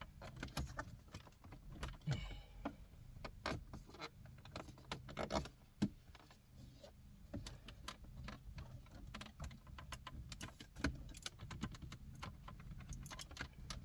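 Irregular plastic clicks, taps and rattles as a Cadillac CTS Vsport's dashboard radio trim panel is worked loose by hand, its retaining clips tight in the dash, over a faint low steady hum.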